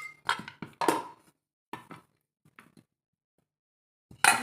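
A kitchen utensil knocking and clinking against cookware as oiled, marinated tofu and vegetables are handled for the air fryer. There is a quick run of sharp knocks with a short metallic ring, a few softer taps, then one loud ringing knock near the end.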